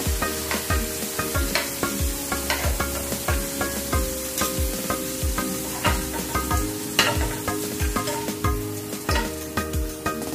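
Background music with a steady beat, over hot oil sizzling as golden-brown fried potato chunks are lifted out of the pan with metal tongs. The tongs click against the pan and the stainless mesh strainer.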